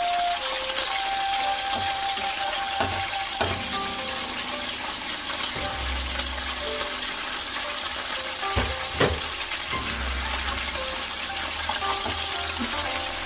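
Steady hiss and sizzle of food frying in hot oil, with a few sharp knocks, two of them close together about nine seconds in. Soft background music plays underneath.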